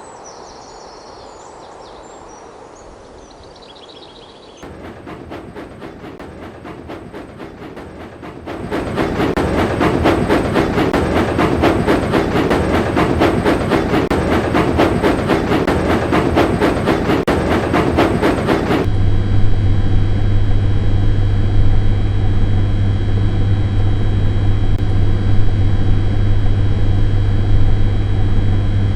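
Sound-effects track: faint chirps at first, then a train running with a fast, even clattering beat that comes in about five seconds in and jumps much louder about three seconds later. A little past halfway the train sound cuts off suddenly and gives way to a steady, low engine drone.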